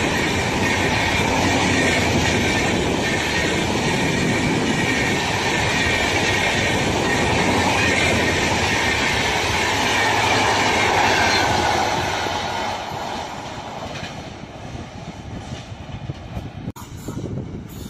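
Express passenger train's coaches passing close at speed, a steady loud rush of wheels on rails. It fades about twelve seconds in as the end of the train goes by.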